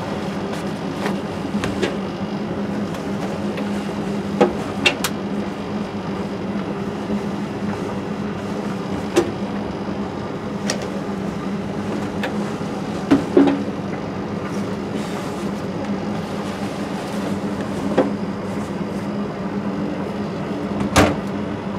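Jeans being pushed into a Bosch front-loading washing machine drum, with a few soft knocks, then the machine's door swung shut with a sharp knock about 21 seconds in. A steady low hum runs underneath.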